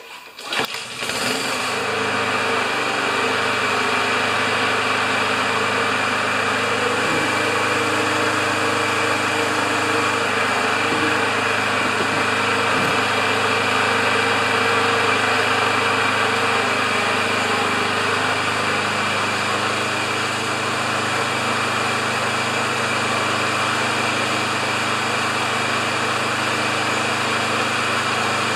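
A LawnBoy walk-behind mower's Honda single-cylinder engine catches within the first second and runs steadily, newly fitted with a BPR6ES spark plug in place of the BPR5ES it ran poorly on. Its pitch drops slightly about two-thirds of the way in.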